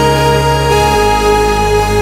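Background music: sustained chords that change about a second in.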